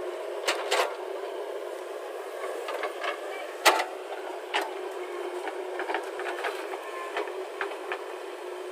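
JCB 3DX backhoe loader's diesel engine running steadily, heard thinly with no low rumble, with scattered sharp clanks and knocks from the working machine, the loudest a little under four seconds in.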